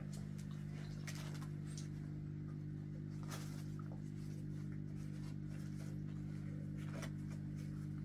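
A steady low hum, with a few faint clicks and taps scattered through it.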